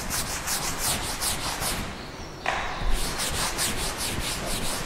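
Quick, rhythmic rubbing strokes on a classroom board, about four a second, with a short pause about two seconds in.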